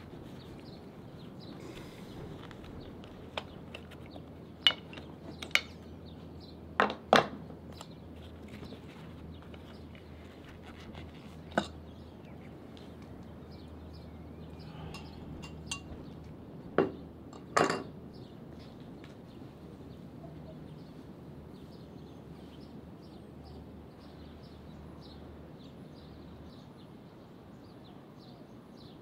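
Scattered sharp clinks and knocks of cooking utensils and dishes, about eight in all, the loudest coming as two quick pairs. Under them runs a steady low hum that stops shortly before the end.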